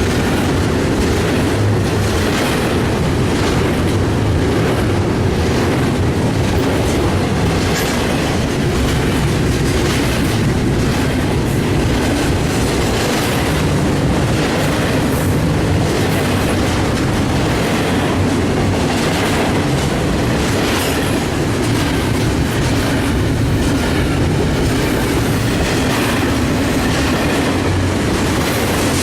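Double-stack container freight train rolling past: a steady rumble of steel wheels on the rails, with repeated clicks as the wheels cross rail joints.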